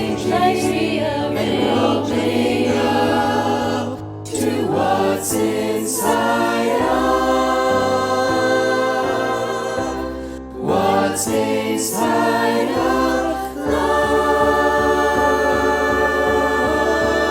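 A high school chorus singing in harmony, its voices recorded separately and mixed into one virtual choir. Phrases are separated by short breaks, and in the last few seconds the choir holds one long chord.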